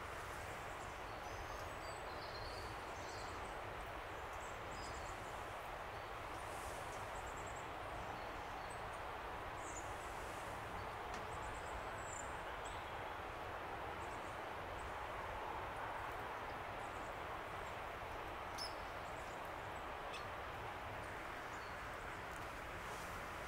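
Woodland ambience: a steady rushing background noise with a low rumble under it, and faint, short, high chirps of small birds scattered through.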